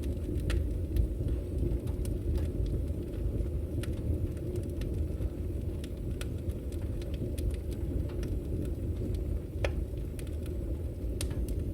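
Fire burning with a steady low rumble and scattered sharp crackles and pops at irregular intervals.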